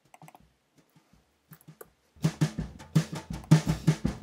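A snare drum sample ('snare.wav') played back through a Pure Data patch, with its gain set to 2 (double amplitude). After a couple of seconds of faint mouse or keyboard clicks, a fast, even run of drum hits starts, about four to five a second.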